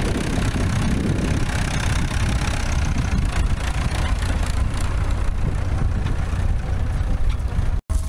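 Tractor engine running steadily, probably at idle, with an even low hum and mechanical clatter. The sound cuts out abruptly for an instant near the end.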